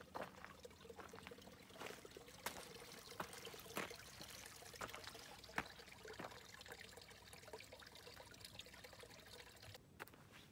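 Faint trickle of running water, with scattered light clicks and taps.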